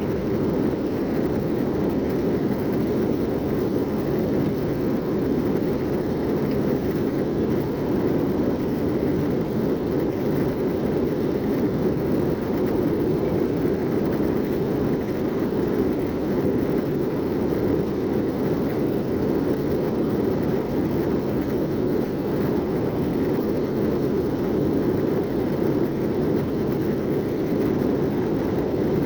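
Steady cabin roar of an Airbus A321-231 in flight, heard from inside the passenger cabin: the drone of its IAE V2500 engines and the rush of air over the fuselage, even and unchanging.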